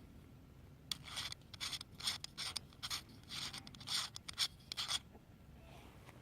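Metal clip-on phone lens being unscrewed and handled: a series of short scraping rubs as the wide-angle element is twisted off, leaving the macro lens.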